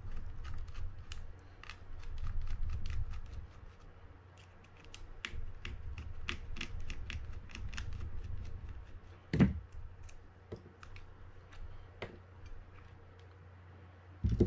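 Mini screwdriver backing out the small screws that hold the Baitrunner clutch plate on a Shimano Baitrunner 6500B spinning reel: a run of light metal clicks and scrapes over a low rumble of the reel body being handled, with one louder knock about nine and a half seconds in.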